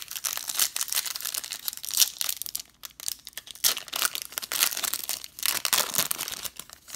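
Shiny foil wrapper of a Topps Finest baseball card pack crinkling in rapid crackles as it is worked open by hand, with a brief lull about a third of the way in.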